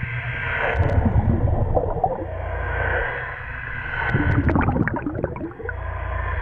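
Underwater: a Remora Solo rotary hull-cleaning brush scrubbing slime and growth off a fouled boat hull, a low steady hum broken by two spells of bubbling gurgle, about a second in and again around four seconds in.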